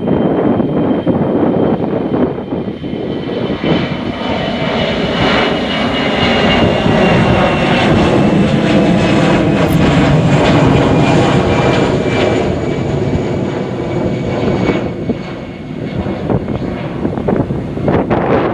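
Airbus A320-family twin-engine jet at takeoff power as it lifts off and climbs past. The engine noise is steady and loud, with a high whine that slowly falls in pitch. The low rumble is heaviest about halfway through, as the plane passes nearest, then eases.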